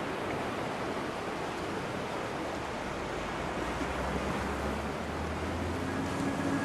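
Steady rushing outdoor noise, like surf or wind. A low steady hum joins it about three and a half seconds in, and a faint higher steady tone appears near the end.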